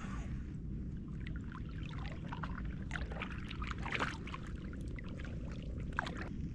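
Small splashes and trickling water, a scatter of short irregular splashes, loudest about four and six seconds in, over a steady low rumble.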